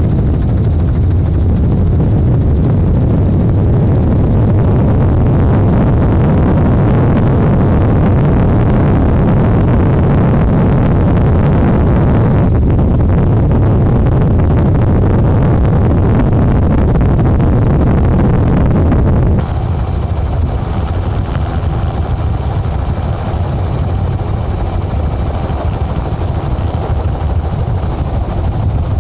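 Steady helicopter rotor and engine noise, heard from aboard the aircraft. About two-thirds through, the sound changes abruptly to a slightly quieter, thinner drone with a high hiss.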